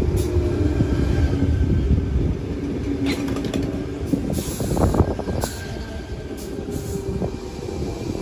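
Tangara double-deck electric train running along the platform with a heavy low rumble and a motor whine that slides down in pitch. A few short high hisses and clicks come about three to five seconds in.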